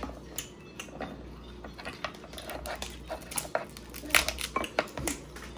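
Scattered sharp clicks and cracks of crab leg and lobster shells being cracked and picked apart by hand, the loudest cluster about four seconds in.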